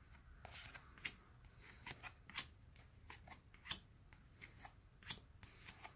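Faint, irregular clicks and slides of glossy 2022 Topps baseball cards being flipped off a hand-held stack one at a time, about two a second.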